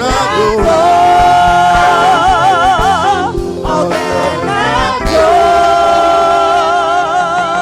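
Live gospel music: a singer holds two long wordless notes with a wide vibrato over steady band accompaniment, the first breaking off a little past three seconds in and the second starting about five seconds in.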